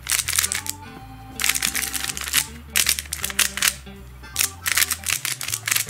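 Runs of rapid clicking and clacking from a ShengShou Mr. M magnetic 3x3 speed cube as its layers are turned in quick bursts, with short pauses between. Background music with a steady low bass line plays underneath.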